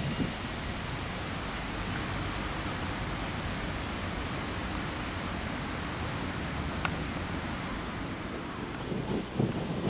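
Steady wind hiss on the microphone, outdoors, with no gusts.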